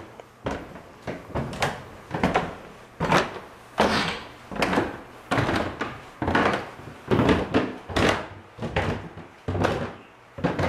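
Footsteps climbing wooden stairs: a steady series of heavy thuds, about three every two seconds.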